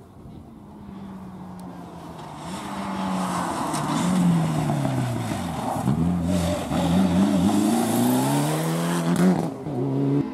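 Mitsubishi Lancer Evolution rally car's turbocharged four-cylinder engine drawing closer and louder, its pitch falling as it slows for a corner, jumping between gears, then climbing again as it accelerates hard past. The sound breaks off suddenly near the end.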